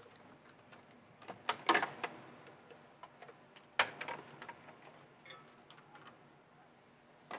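Light clicks and clatter of parts and tools being handled under a pickup's hood: a cluster of sharp clicks about a second and a half in, another near four seconds, with scattered lighter ticks between.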